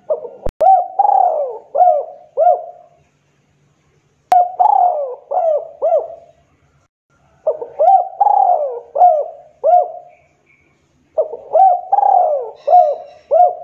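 A caged spotted dove (tekukur) cooing in four phrases, each a run of several rolling coos lasting two to three seconds, with short pauses between. A sharp click sounds in the first phrase and another at the start of the second.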